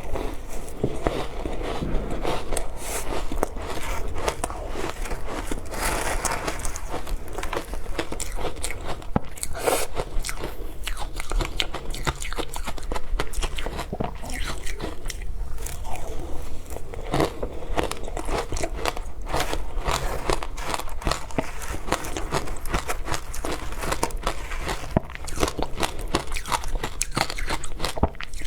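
Close-miked biting and crunching of frozen matcha ice, with a dense, irregular run of crunches throughout.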